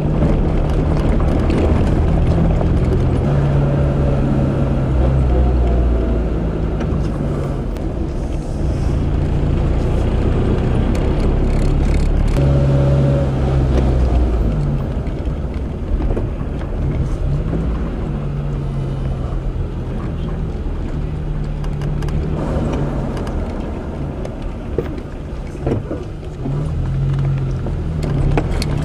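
Car engine running with road noise while driving over a potholed, partly gravel road. The engine's pitch rises and falls with the throttle, with a few sharp knocks from bumps.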